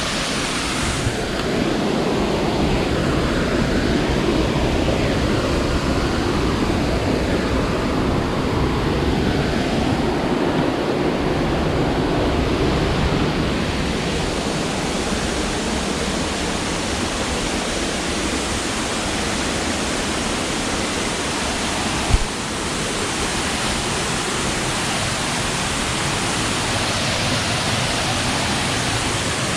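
Waterfall rushing steadily, a loud, even wash of falling water. One brief sharp tap about two-thirds of the way through.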